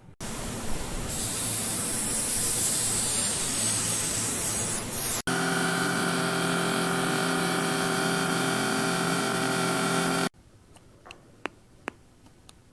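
A loud spray-like hiss for about five seconds, cut off sharply and replaced by a steady machine hum with several fixed tones for about five seconds, which cuts off suddenly too; then a few light clicks.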